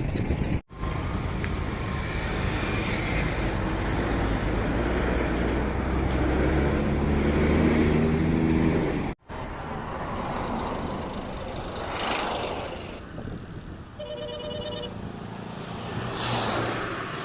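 Road traffic with engines running and vehicles passing. A heavy vehicle's engine drones loudly for a few seconds in the middle, and a brief high-pitched beeping sounds near the end. The sound cuts out twice for an instant.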